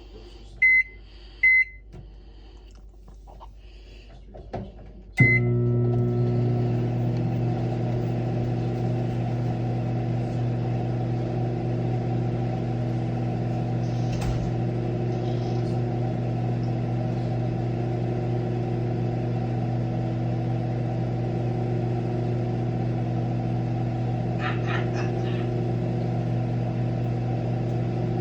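Sunbeam microwave oven keypad beeping twice, then about five seconds in a last beep as the oven starts. It then runs with a steady hum, heating an egg.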